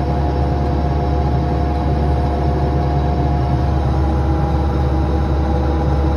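Bobcat 337 compact excavator's diesel engine running steadily at an even speed, heard close up from the operator's seat, with a strong low hum.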